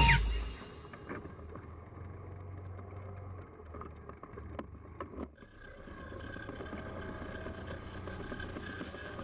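ATV engine running steadily at low trail speed, a low hum, dipping briefly about five seconds in.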